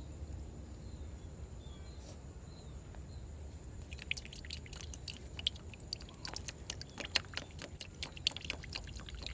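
A hand splashing and sloshing water in a shallow fish tank. From about four seconds in it becomes a rapid, irregular patter of small splashes and drips that grows louder toward the end.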